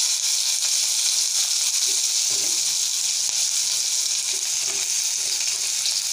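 Chopped onions sizzling steadily in hot refined oil in a kadai, a continuous even hiss of frying.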